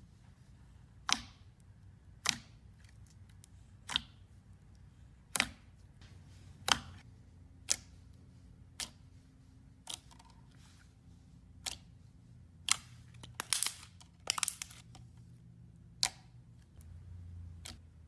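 Slime being pressed and poked, giving sharp clicking pops about once a second, with two quick runs of crackling pops a little past the middle.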